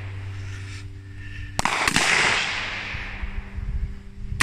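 Emtan MZ-15 rifle firing: two quick shots about a second and a half in, then another shot right at the end, each trailing off in a long echo.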